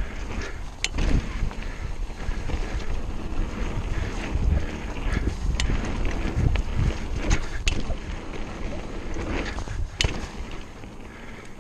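Mountain bike descending a dirt trail at speed: wind buffeting the camera microphone and tyres rumbling over the ground, with a few sharp clacks and rattles from the bike over bumps. The rush eases off near the end.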